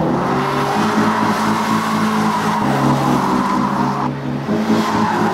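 BMW Z3 drifting with its rear tyres squealing in one long, continuous skid over the engine, the squeal breaking off briefly about four seconds in.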